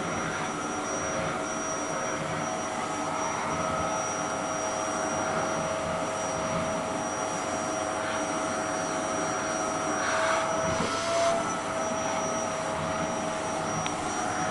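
Vacuum cleaner running steadily with a constant whine as its brush nozzle is drawn through a cat's fur. The whine gets a little louder and higher for a moment about ten to eleven seconds in.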